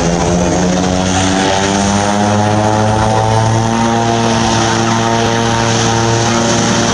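Beechcraft King Air 350's twin PT6A turboprop engines running at low power while the aircraft taxis and turns on the runway. The propellers give a steady, loud drone of several layered tones over a hiss, shifting slightly in pitch.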